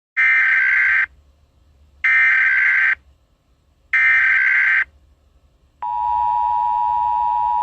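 Emergency Alert System header: three one-second bursts of warbling digital data tones, evenly spaced, followed about six seconds in by the steady two-tone attention signal, which holds to the end.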